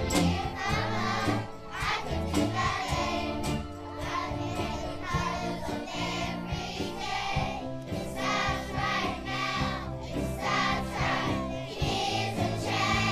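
A large group of schoolchildren singing a song together over instrumental accompaniment.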